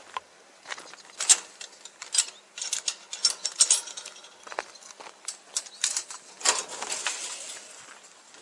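Metal clinks and rattles from a chain-link gate and fence, rubbing right against a body-worn camera, mixed with footsteps on gravel. A longer scrape comes about two-thirds of the way through.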